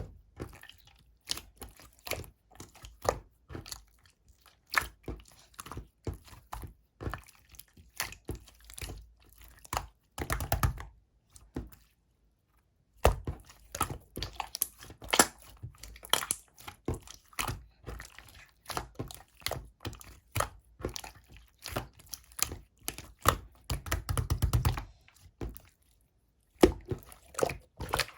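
Clear slime being pressed and stretched by hand, making a rapid run of small sticky clicks and pops, with denser bursts of crackling twice. The sound breaks off into silence briefly about 12 seconds in and again near the end.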